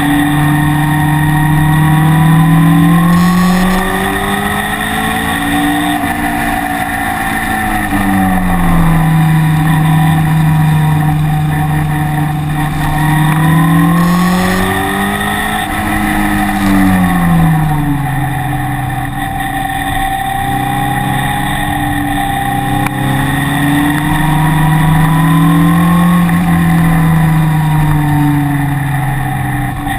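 Car engine running hard on a track, its note rising and falling smoothly three times as it accelerates and lifts.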